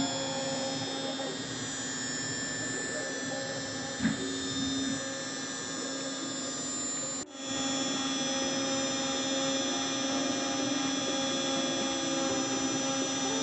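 CNC router spindle running with a steady whine while its pointed engraving bit cuts into a clear acrylic sheet. There is a short knock about four seconds in, and the sound drops out for a moment a little past halfway.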